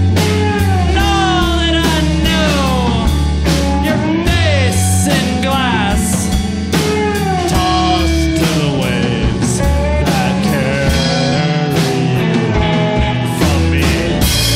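Rock band playing live: a lead line of bending, sliding notes over a steady bass and drums.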